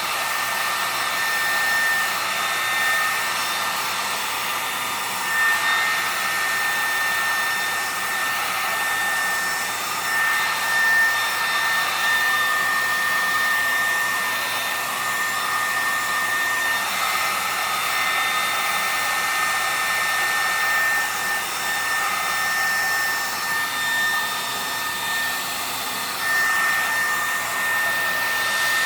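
Hair dryer blowing steadily, loud, with a steady whine over the rush of air; its sound shifts slightly now and then as it is moved about, pushing wet alcohol ink across a board.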